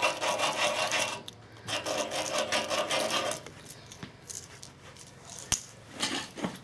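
Hand deburring tool scraping the burr off the edge of a freshly drilled 1/2 inch hole in a steel loader bucket, in quick rapid strokes. Two spells of scraping, the second ending about halfway through, followed by a single sharp click.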